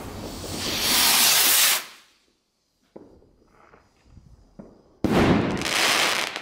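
Consumer fireworks going off. A loud hiss swells for about two seconds, then cuts off abruptly. After a quiet gap, a sudden loud hissing burst begins about five seconds in as a red starburst shell breaks.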